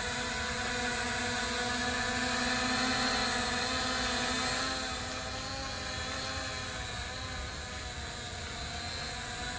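DJ1 foldable quadcopter drone hovering, its four small propellers making a steady buzzing whine of several pitches together. It gets a little quieter about four and a half seconds in.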